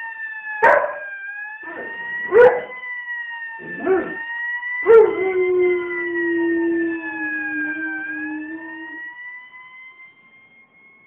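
A fire engine siren wailing with a slow rise and fall, and a dog howling along with it: four short, sharp yelps in the first five seconds, then one long, low howl held for about four seconds. The siren fades away near the end.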